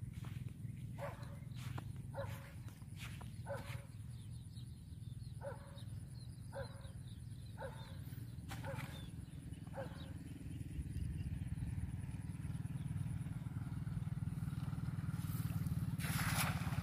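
Footsteps on a grassy pond bank, spaced about a second apart, under a steady low hum. Near the end comes a loud rushing swish as a cast net is thrown out over the water.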